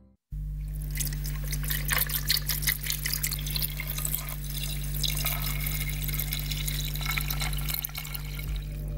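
Water running and splashing from a kitchen tap, with many small clicks and clinks, over a steady low electrical hum.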